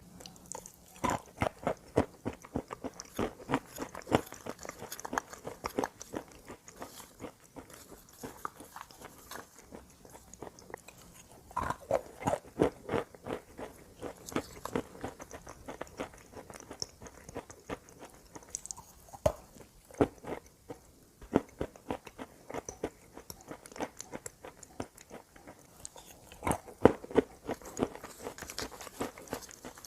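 Close-miked biting and chewing of hard, dry chalk and clay: dense runs of sharp crunches and crackles, with the heaviest bites about a second in, around twelve seconds in and near the end, and softer chewing in between.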